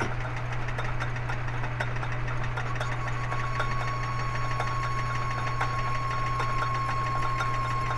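Machine spindle running steadily as its cutter side-cuts into the soft material of a cue ball shifter knob, with a steady hum and faint ticking. A thin steady whine joins about three seconds in as the cut goes on.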